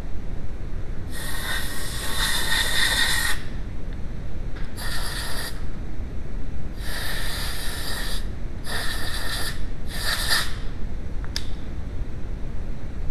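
Compressed-air blow gun blowing out the inside of a rear wheel hub to clean it before greasing: five bursts of hissing air, the first about two seconds long and the rest shorter. A sharp click comes near the end.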